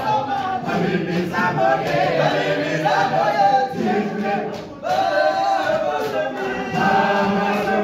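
All-male a cappella choir singing in isicathamiya style, many voices in close harmony with a low bass line. The singing drops briefly a little past halfway, between phrases, then comes back in full.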